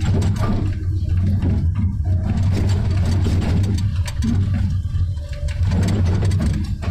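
Komatsu 290 excavator's diesel engine running steadily under load, heard from inside the cab, with repeated knocks and scraping as the bucket digs into rocky soil.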